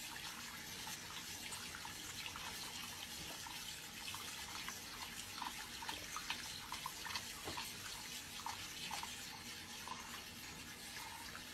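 Water running steadily from a tap into a bathroom sink, with light splashes as hands wash a lion cub in the basin, more of them in the middle.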